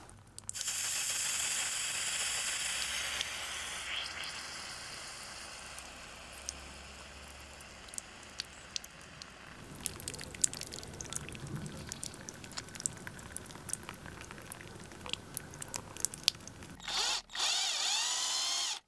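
Water running from a hose pipe and splashing over a small metal casting held in the hands, with many small clicks and drips in the later part. Near the end an electric drill runs briefly, its whine bending up in pitch.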